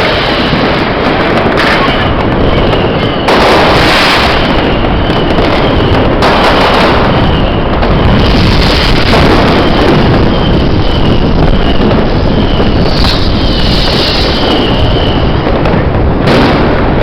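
Fireworks going off continuously: a dense crackle and rumble with louder sharp bangs every few seconds, about two seconds in, three seconds in, six seconds in and near the end.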